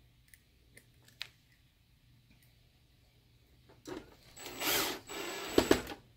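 A screwdriver working a screw loose at the metal bracket of a projector's main circuit board: about two seconds of noisy turning, starting about four seconds in and ending in two sharp clicks. A few light clicks come before it.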